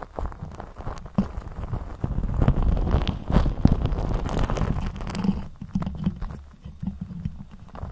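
Lipstick rubbed against the microphone: close, scratchy rubbing with irregular clicks and knocks over a low rumble, loudest in the middle and easing off near the end.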